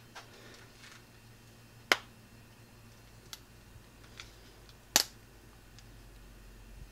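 Two sharp metallic clicks about three seconds apart, with a few faint ticks between them, as a new throwout bearing is pressed by hand into a Harley-Davidson Sportster clutch ramp.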